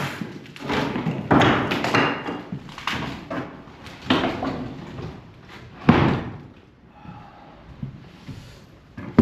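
Wooden stair and framing lumber being torn out and dropped during demolition: a series of irregular thuds and clattering crashes of rotten boards.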